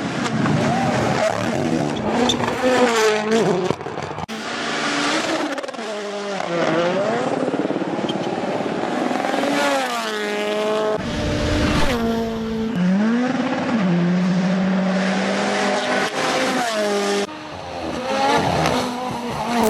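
Rally car engine revving hard, its pitch repeatedly rising and dropping through gear changes, with tyre noise. The sound changes abruptly a few times.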